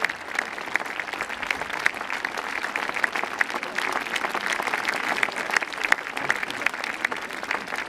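Large crowd applauding steadily, many hands clapping together.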